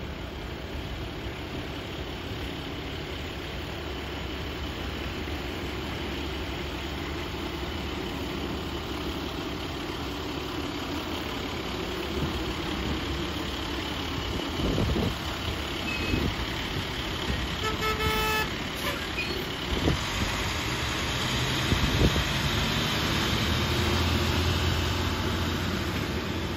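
2009 International Vactor vacuum truck running steadily at idle, with a brief horn toot about two-thirds of the way through.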